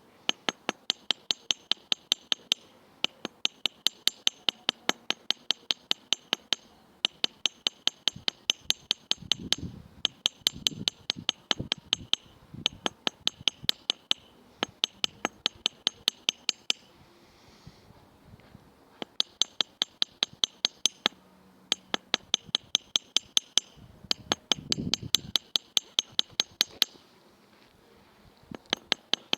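Small hammer tapping lightly and quickly on a small steel anvil, about four to five taps a second. The taps come in runs of a few seconds with short pauses, and each strike rings with a high metallic tone. It is flattening and texturing twisted triple-strand thin copper wire.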